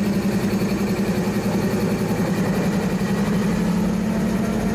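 Norfolk Southern GE diesel-electric locomotive's engine running steadily at low throttle: a low, even drone with a fast throb.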